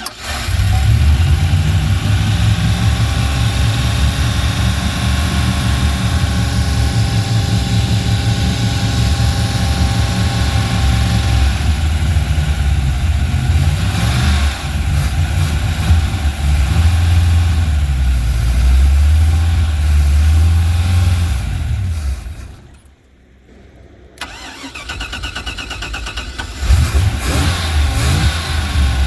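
Ski boat's inboard engine on its first start in the water, catching at once and running steadily with some revving, then stopping abruptly about 22 seconds in. An engine is heard running again near the end.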